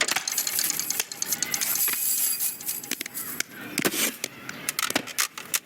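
Rapid, irregular clicking and clattering of small hard objects, several sharp clicks a second.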